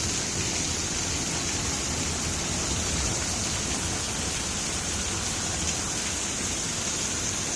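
Torrential downpour: a steady, dense roar of heavy rain pouring onto the roof, gutters and pavement.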